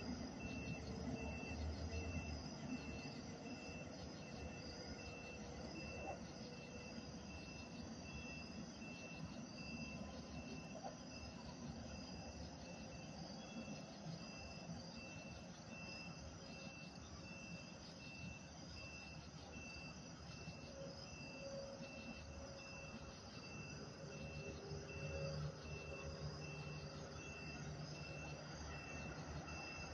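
Night insects chirping in a steady rhythm of about one chirp a second. Under them is a faint low hum of a distant approaching train, which grows a little in the last few seconds.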